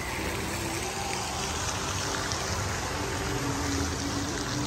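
Steady splashing and pouring of water from an indoor fountain.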